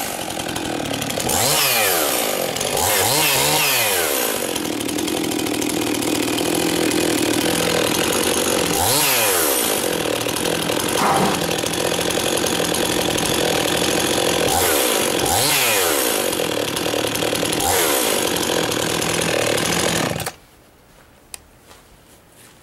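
Husqvarna 51 50cc two-stroke chainsaw running with no load, revved up and back down to idle several times and held at high revs in between, then switched off about twenty seconds in.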